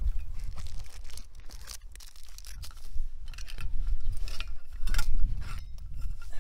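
Hands handling kit for a coffee break: irregular clicks, crinkles and scrapes, louder around the middle and again near the end, over a steady low wind rumble on the microphone.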